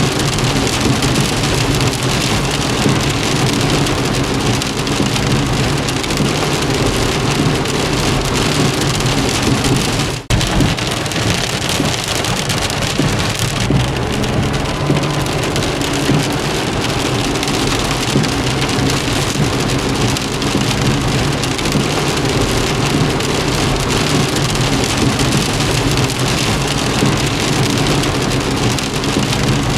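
Steady heavy rain drumming on a car's body, heard from inside the cabin over a low, steady hum from the moving car. There is a momentary dip in level about ten seconds in.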